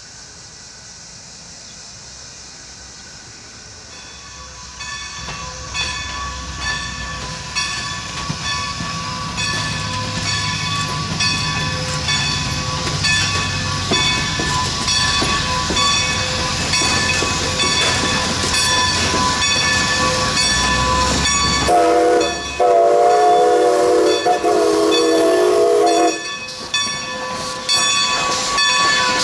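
Steam locomotive No. 90, a 2-10-0 Decapod, moving slowly, its wheels on the rails giving a steady high squeal and clicking. The noise grows louder from about four seconds in. About three-quarters of the way through, its Reading six-chime steam whistle sounds a short toot and then a long blast of about three seconds.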